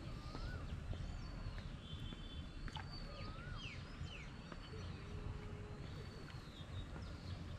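Several birds calling, with short arching whistled calls repeating about once a second over a steady low rumble.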